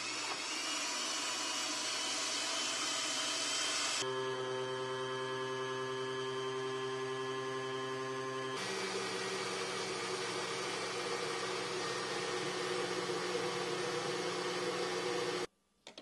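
Countertop blender motor running hard, whipping a thick shea butter mixture into cream. Its tone changes abruptly about four seconds in and again after eight seconds, then the motor cuts off just before the end, followed by a short knock.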